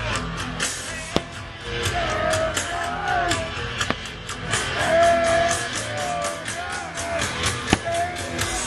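Pop music with a steady beat and a sung melody, played loud over a sound system for a fireworks show, with a few sharp bangs from fireworks about a second in, at about four seconds and near the end.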